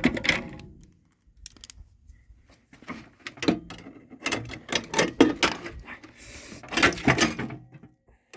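Sheet-metal plate and chassis of a microwave oven being pried and wrenched at by hand: irregular metallic clanks, rattles and knocks in clusters, with a quiet spell about a second in.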